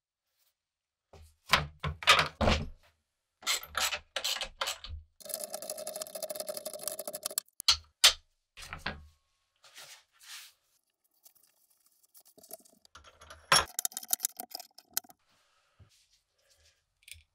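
Metal tools and a cast-iron bench vise handled on a wooden workbench: several heavy clunks, then about two seconds of steady metallic scraping or grinding, then more knocks and scraping near the end.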